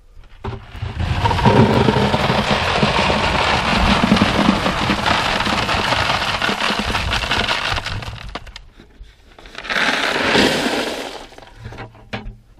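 Crushed gravel pouring through a crawl-space foundation vent into a plastic bucket, steadily for about seven seconds, then a second, shorter pour about ten seconds in.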